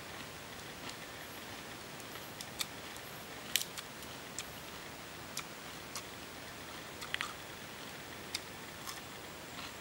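Crisp, sharp clicks and snaps, one every second or so and irregular, from crunching and tearing fresh lettuce leaves, over a steady faint hiss.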